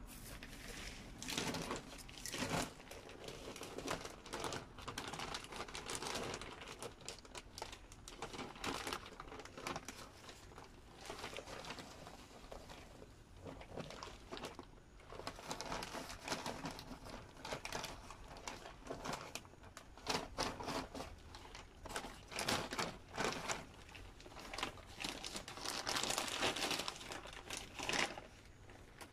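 Plastic bag of potting soil crinkling and rustling irregularly as it is handled and tipped over a flower pot.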